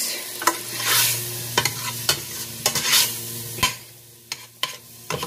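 Diced kielbasa sausage, pepperoni and mushrooms sizzling in oil in a stainless steel pot while a metal spoon stirs them, scraping and clicking against the pan many times. The sizzle drops quieter about four seconds in, with a few last clicks of the spoon.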